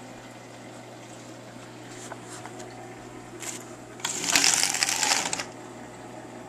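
Horizontal window blinds rattling for about a second and a half as they are pulled open, over a steady low hum. A few light clicks come before it.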